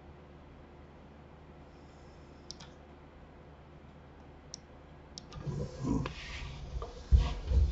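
A few sharp computer mouse clicks, a second or two apart, over quiet room tone. In the last two seconds comes a louder stretch of low bumps and rustling, with the loudest thump near the end.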